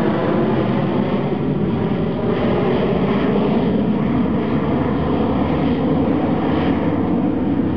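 Twin-engine jet airliner flying low overhead, its engines a loud, steady rumble that holds as the aircraft moves away.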